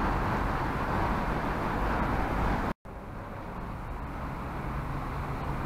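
Steady city street noise of passing road traffic. It cuts out completely for a split second just under three seconds in, then carries on quieter.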